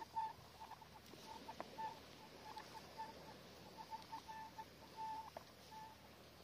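Garrett metal detector giving faint, short, irregular beeps at one mid pitch as the coil sweeps the sand, sounding off on small metal targets, with a few faint clicks among them.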